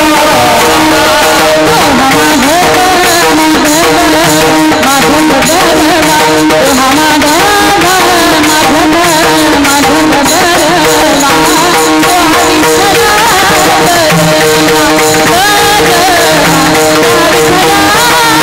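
Kirtan devotional music: singing over a steady held instrumental drone, with tabla-style hand-drum percussion and frequent sharp strokes.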